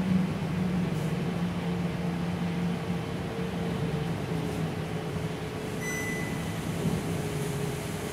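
Gillig low-floor city bus heard from inside the passenger cabin while under way: a steady drivetrain hum over road noise, easing slightly lower in pitch and level. A short high electronic beep sounds about six seconds in.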